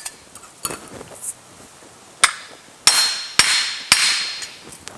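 Short sledgehammer striking a metal exhaust insert on a wooden block. Four ringing blows come about half a second apart, starting a little past two seconds in. The blows are stretching the insert out to fit a filler tube.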